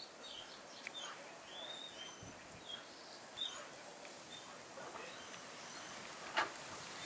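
Quiet outdoor ambience with small birds chirping several times in the first few seconds, and a single sharp knock near the end.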